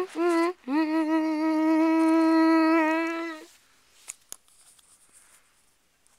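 A person humming a short note, then one long held note of nearly three seconds that stops about three and a half seconds in. Faint handling clicks follow.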